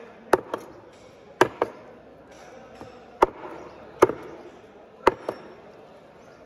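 Large knife chopping trevally into chunks on a thick wooden block: about nine sharp knocks of the blade striking the wood, several in quick pairs, with short pauses between.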